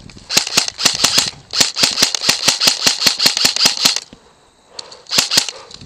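Airsoft gun firing rapid bursts of sharp clicks, about nine shots a second: a one-second burst, then a longer burst of about two and a half seconds, and a brief burst near the end.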